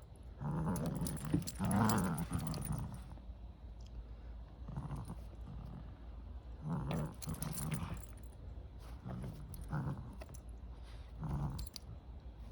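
Cavalier King Charles Spaniel growling in play while fighting over a toy. The growl runs on for the first few seconds, then comes back in short spells every second or two.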